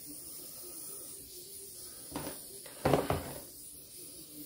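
Butane soldering iron running with a faint steady hiss. Solder is fed to its hot tip, with a brief noise about two seconds in and a louder one about three seconds in.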